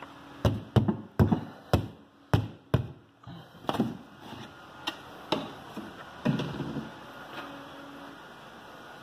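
A rapid series of sharp knocks and taps, about eight in the first three seconds, then a few scattered ones, with a faint brief hum later on.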